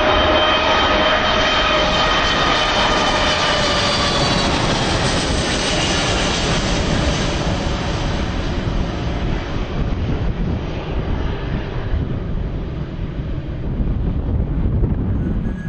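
Twin-engine jet airliner passing low overhead on landing approach: a loud engine roar with a high whine that slowly falls in pitch as it goes by, then fading away over the last several seconds.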